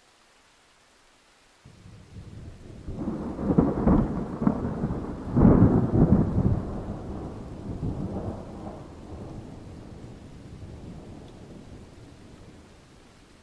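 A peal of thunder over a faint hiss of rain: a low rumble starts suddenly about two seconds in, builds to two loud cracking peaks around four and six seconds, then rolls on and slowly fades away.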